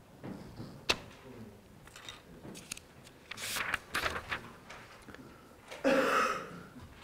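Sheets of paper being handled and slid across a desk, rustling in short irregular bursts, the loudest near the end, with a single sharp knock about a second in.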